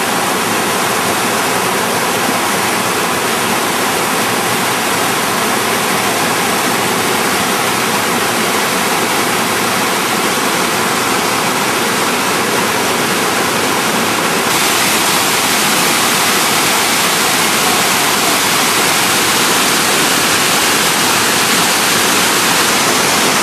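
Loud, steady rush of white water pouring over small rocky cascades and waterfalls. About fourteen seconds in, the rush turns hissier and brighter.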